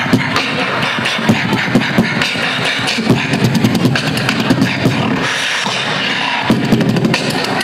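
Beatboxer performing into a cupped handheld microphone: a fast beat of mouth-made drum sounds with strong low kicks. About five seconds in the low end drops out for roughly a second of hissing, then the beat comes back.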